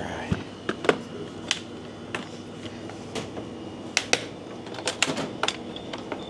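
Irregular sharp clicks and clacks of small hard objects being handled, about a dozen spread unevenly, with a denser run about two-thirds of the way through.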